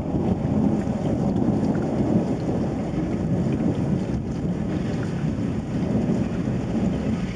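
Thunderstorm noise: a steady low rumble that stays even throughout, with no sharp cracks.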